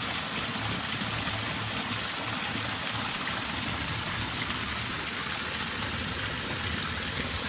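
Small stream waterfall running, a steady, even rush of falling water.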